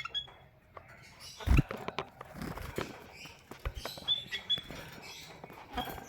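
Small cage birds, a female canary and a male white-headed munia, moving about their cage: scratchy patter and sharp knocks of hopping and pecking, the loudest knock about a second and a half in. A few short, high chirps come at the start and again about four seconds in.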